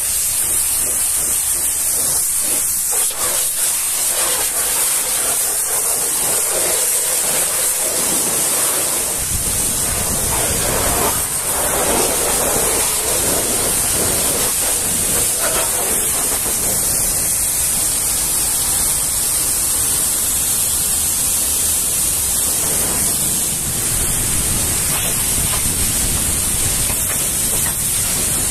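High-pressure washer jet spraying water onto truck tyres and a trailer's side panel: a steady hiss. It grows fuller and deeper about a third of the way through.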